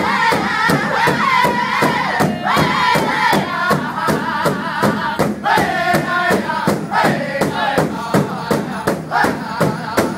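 Powwow drum group singing together in high voices over a steady, even beat struck on one big shared drum.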